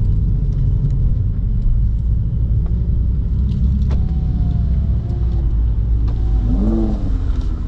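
Steady low drone of a Mercedes CLK55 AMG's V8 engine and road rumble, heard inside the cabin while the car drives along without revving.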